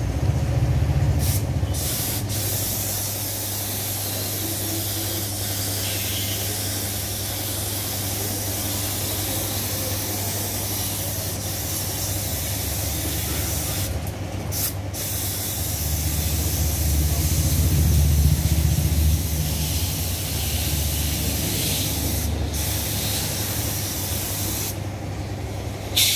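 Paint spray gun spraying in long steady hisses, broken off briefly a few times as the trigger is let go, over a low steady hum.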